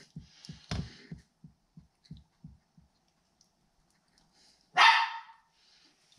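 Small dog panting in a quick rhythm, about three breaths a second, fading out, then one short, sharp bark nearly five seconds in.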